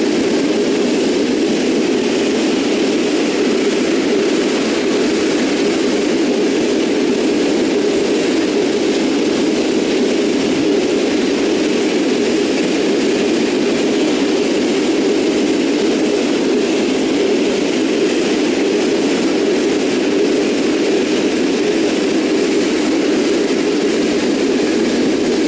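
Loaded coal gondola wagons of a long freight train rolling past, their steel wheels on the rails making a steady, loud, unbroken noise.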